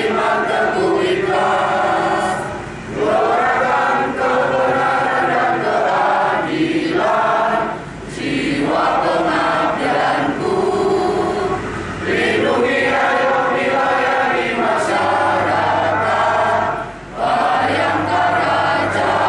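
A choir singing a song in long sustained phrases, with short breaks between phrases every four or five seconds.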